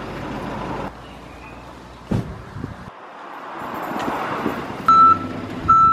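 Bus engine running and drawing closer, then a reversing alarm starting near the end: a high steady beep about once a second, twice within these few seconds. A single knock sounds about two seconds in.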